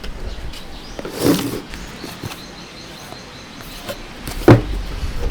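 Two sharp knocks, one about a second in and a louder one near the end, over faint background noise.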